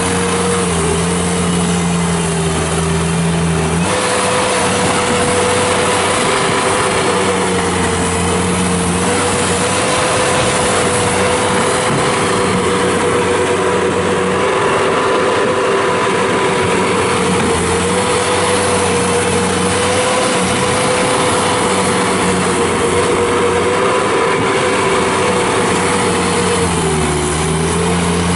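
Kubota diesel engine of a 2005 Bobcat T180 tracked skid steer running steadily at high revs. Its pitch sags for a few seconds near the start and again briefly near the end.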